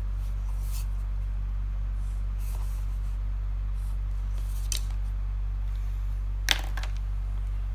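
Pen strokes scratching on paper as lines are drawn along a ruler, a few short scrapes, over a steady low electrical hum. A louder brief scrape comes about six and a half seconds in.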